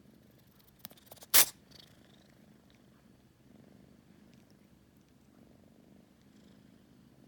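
Kitten purring softly, with one sharp, sudden sneeze about a second and a half in, preceded by a few small clicks.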